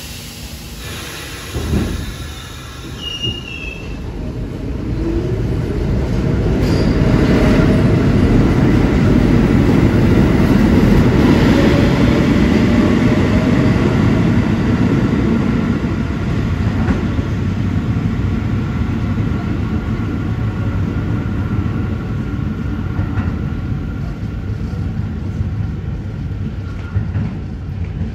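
R46 subway train pulling out of the station: wheels and motors rumble on the rails, building to loudest about ten seconds in and then slowly fading as the train moves off into the tunnel, with some wheel squeal in the first half.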